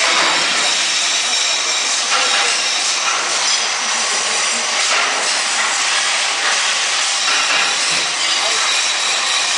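PETRA band saw cutting through a workpiece: a steady, dense hiss with faint high tones running over it.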